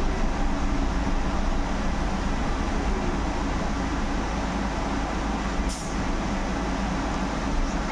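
Solaris Urbino 18 IV electric articulated bus heard from inside while driving, a steady rumble of road and running noise. A short, high hiss of air cuts in about six seconds in.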